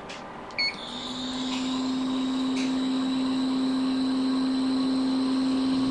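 A hot air rework station gives a short beep, then its blower starts and runs with a steady hum and faint high whine, swelling over the first second or two. It is heating the iPhone X logic board to solder down the replacement U5600 touch IC.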